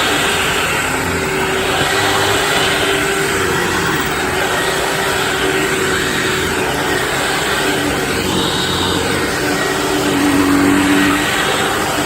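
Hoover WindTunnel self-propelled upright vacuum cleaner running steadily, its sound swelling and easing every couple of seconds, with a brief louder, lower hum near the end.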